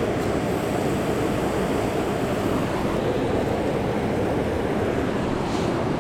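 Mountain stream water rushing: a steady, even roar of flowing water.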